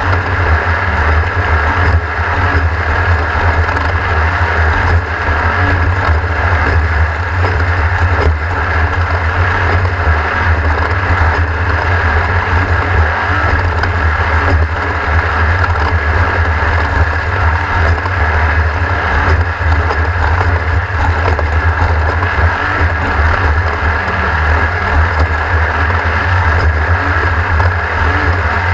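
Racing engine running hard at speed, its note rising and falling slightly, with a heavy low rumble underneath.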